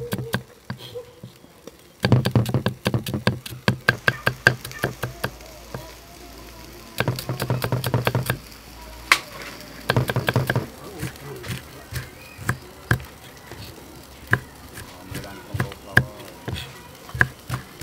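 Cleaver chopping on a wooden chopping block, slicing shallots and red chilies: several bursts of rapid knocking strikes, with slower single chops in between.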